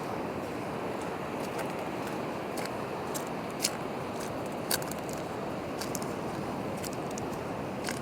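Steady rushing outdoor noise with scattered sharp clicks and crackles, the loudest about a third and halfway through.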